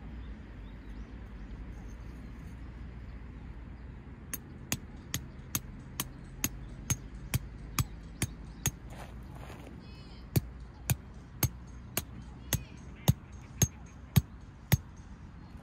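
Two runs of sharp, evenly spaced striking blows, about two a second, about ten in the first run and nine in the second, with a pause of about two seconds between them.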